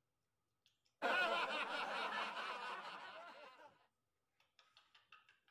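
A snickering laugh that starts suddenly about a second in and fades out over about three seconds, followed by a few faint clicks near the end.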